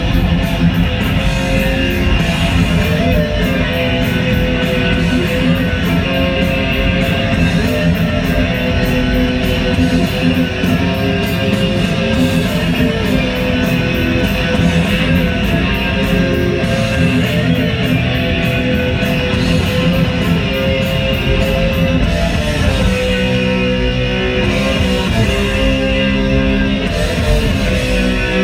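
Music led by guitar, playing steadily and loud.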